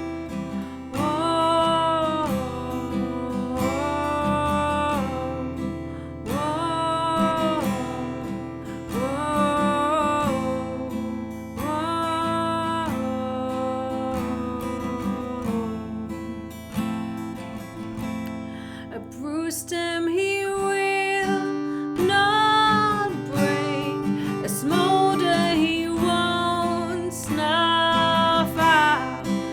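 Acoustic guitar strummed steadily under a slow melody line that comes in short repeated phrases, changing to a new phrase pattern about two-thirds of the way through.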